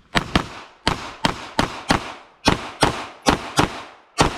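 Handgun fired rapidly during a practical-shooting course of fire: about a dozen shots, mostly in quick pairs, each with a short echo.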